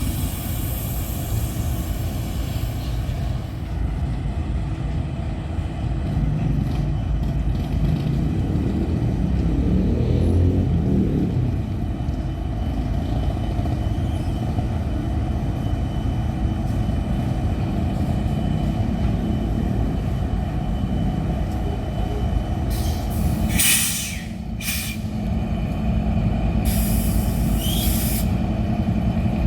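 EMD SD40-2 diesel freight locomotives running with a steady low rumble. About two-thirds of the way through and again near the end come short blasts of hissing air from the train's air brakes.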